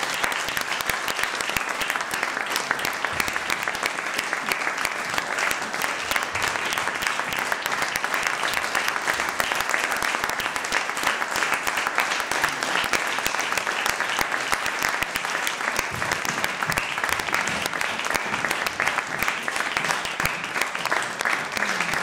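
Audience applauding steadily: dense, unbroken clapping throughout.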